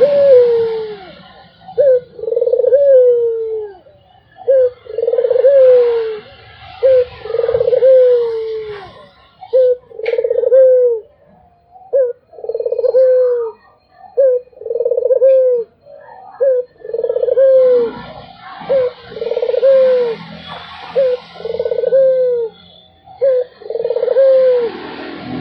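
Ringneck dove (puter) cooing over and over, a short note followed by a longer falling note, roughly every two seconds. Other small birds chirp faintly in the background.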